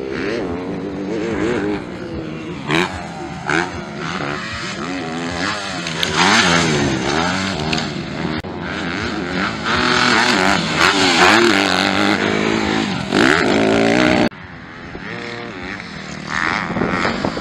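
MX2-class motocross bike engines revving hard, the pitch rising and falling with throttle and gear changes. The sound drops suddenly about fourteen seconds in, then builds again.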